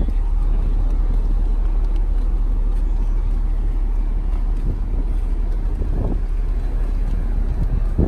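Steady low rumble of wind buffeting a phone microphone.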